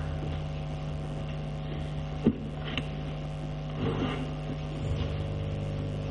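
Steady electrical mains hum, with one sharp click a little over two seconds in.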